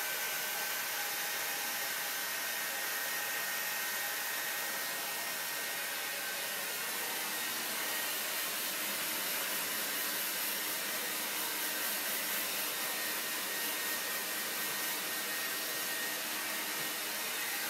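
Hair dryer running steadily: an even blowing hiss with a faint, steady high motor whine.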